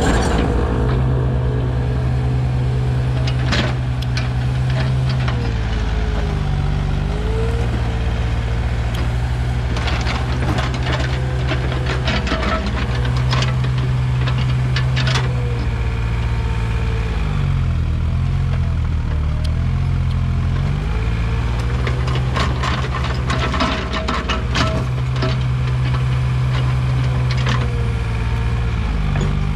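Komatsu PC15 mini excavator's diesel engine running at work, its note shifting up and down several times, with a whine gliding up and down over it and scattered clanks and rattles.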